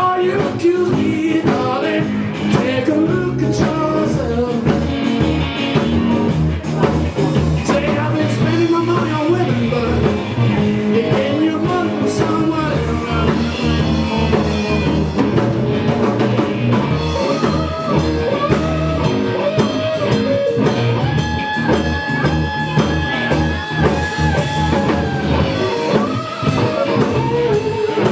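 A rock band playing a blues-flavoured song, with guitar, a drum kit and a singing voice.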